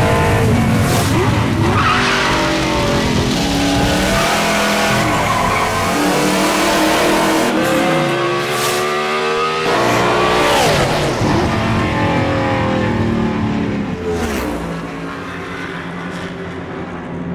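Radical sports-prototype race car engine revving hard on track, its pitch climbing and falling again and again as it accelerates and changes gear. Near the end the engine eases back and grows quieter.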